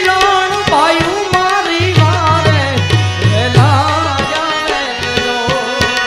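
Live Gujarati folk song: a man singing to his own harmonium, with a hand-drum beat that drops back for stretches and returns.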